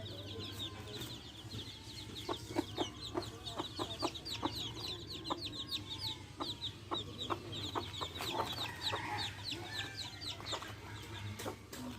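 A brood of baby chicks peeping continuously in quick, high, falling chirps, with a hen's short clucks coming in a run through the middle.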